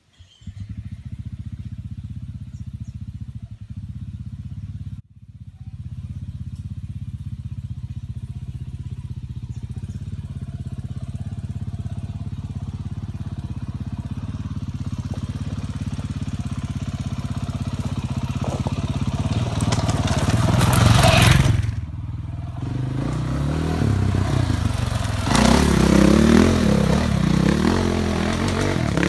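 Dirt bike engine running at low revs and slowly drawing closer, with a loud burst of throttle about twenty seconds in and uneven revving near the end as the bike comes down the trail.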